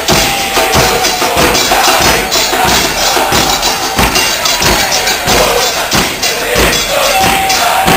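Music with drums beating a steady rhythm, about two strikes a second, under a held melodic line.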